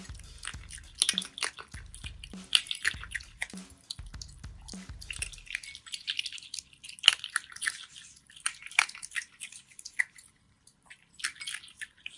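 Close-miked Asian small-clawed otter chewing its food with wet smacking, a fast irregular run of crunches and clicks with a short pause near the end.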